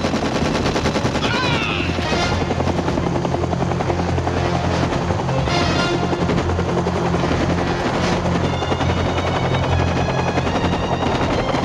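UH-1 Huey helicopter running close by, its rotor beating in a fast, steady pulse over the turbine.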